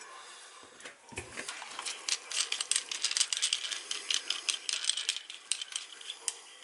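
Small metal hardware clicking and rattling in quick, irregular succession, starting about a second and a half in: the tank bolts, washers and nuts of a toilet being handled and fitted.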